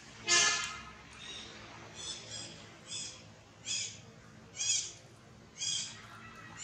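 Baby long-tailed macaque calling: one loud, high cry just after the start, then a run of shorter high squeaks about once a second.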